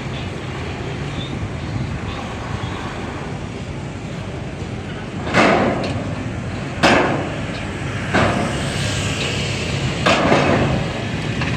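Diesel pile hammer on a crane driving a pile. It strikes four times in the second half, roughly every second and a half, over a steady low engine hum.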